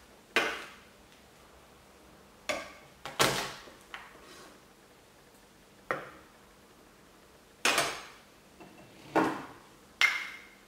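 A kitchen knife smacking down on shallot and garlic cloves on a plastic cutting board, crushing them: several sharp knocks, irregularly spaced a second or two apart.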